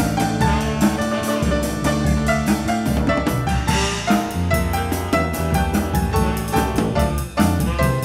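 Jazz-funk band playing live: upright piano over drum kit and electric bass, with a steady, busy drum beat.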